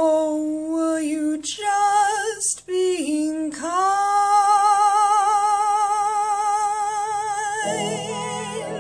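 A woman singing a slow ballad solo, with a wide vibrato. A few short phrases are followed by one long held note from about three and a half seconds in. Lower accompaniment comes in under her voice near the end.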